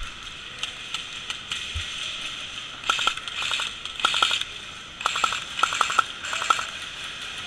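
Airsoft guns firing in short rapid bursts, a run of sharp clicks every half second or so, starting about three seconds in and stopping shortly before the end, over a steady outdoor hiss.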